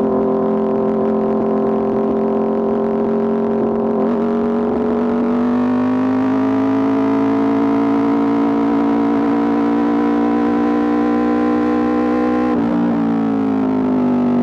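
Aprilia RSV4 RR's V4 engine running through an Austin Racing exhaust at a steady high engine speed. Its note climbs slowly a few seconds in, holds, then breaks briefly and falls away near the end.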